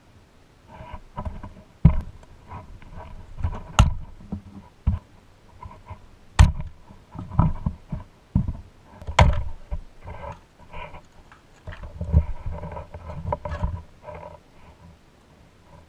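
Hands taking apart a vintage Tonka pressed-steel toy Jeep Wagoneer: a screwdriver works at the chassis, a wheel-and-axle set comes free and the steel body is lifted off its plastic interior. The sound is irregular clicks, scrapes and rattles, with a few sharp metal knocks.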